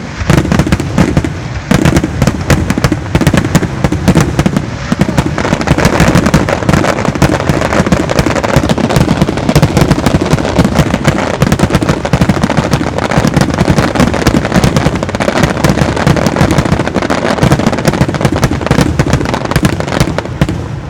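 Fireworks display finale: a dense, rapid barrage of aerial shell bursts and crackling reports, one on top of another with no gaps.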